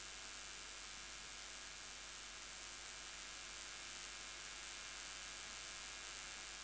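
Steady hiss of recording noise with a faint low hum underneath; no other sound.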